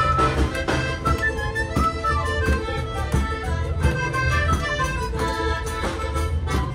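Lively traditional folk dance music with a melody over a steady bass beat, and people clapping along.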